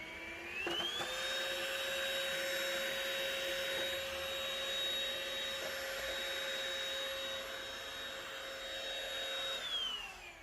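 A small electric motor spinning up to a steady high whine with a rushing noise, running evenly for about nine seconds, then winding down near the end.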